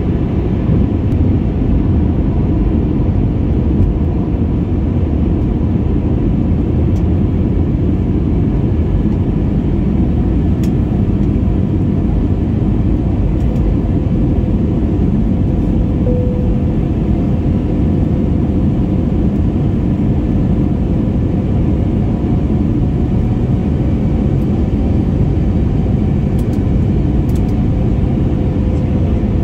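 Steady cabin noise of an Airbus A321 in flight on descent, heard from a seat over the wing: engine and airflow noise with a low rumble and a faint steady hum.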